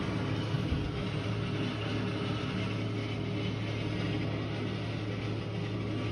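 Steady, unidentified low mechanical drone: an even hum with a few higher overtones over a constant rushing background. A short low knock comes just under a second in.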